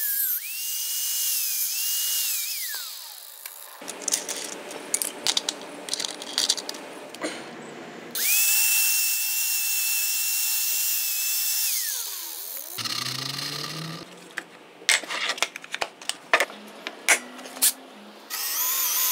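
Angle grinder trimming a small mounting bracket: the motor runs at a steady high whine, winds down about three seconds in, runs again for several seconds and spins down with a falling pitch. Near the end come sharp clicks and knocks and short runs of a cordless drill boring into the bracket.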